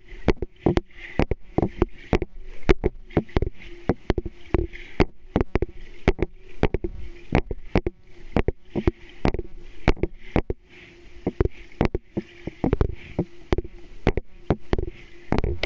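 Underwater pool noise picked up by a submerged camera: irregular sharp clicks and knocks, several a second, over a steady low hum.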